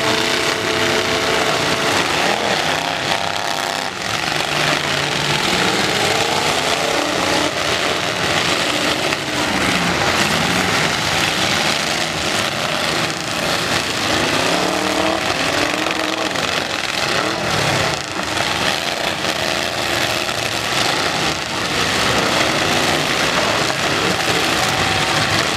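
Several demolition-derby pickup truck engines running hard at once, their pitch rising and falling again and again as the drivers rev them, over a continuous roar.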